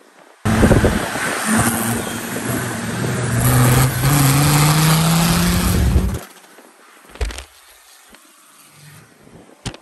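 Land Rover Defender TD5's five-cylinder turbo diesel, fitted with a large VNT race turbo and a straight-through exhaust exiting through the bonnet, accelerating hard close by: a loud, rough exhaust note whose pitch slowly rises. It starts abruptly about half a second in and stops abruptly about six seconds in.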